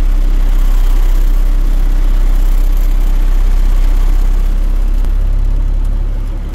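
Heavy rush and buffeting of air from the cab's heater/AC blower on its highest fan speed, blowing against the microphone over a steady engine idle. The rush eases near the end.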